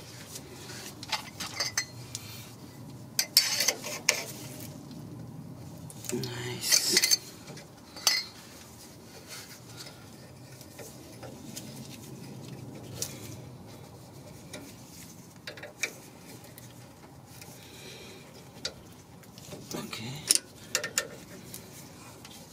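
A steel wrench clinking and scraping against a rusty rear brake caliper as it works a small 10 mm fitting. The sound comes as irregular sharp metal clinks and short scrapes in a few clusters, with quieter stretches of handling between them.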